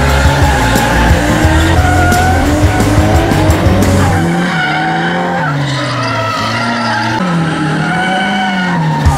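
Drift car engines revving hard, the pitch rising and falling as the cars slide, with tyres squealing and hissing. A heavy bass beat of music sits under the first four seconds or so, then drops away.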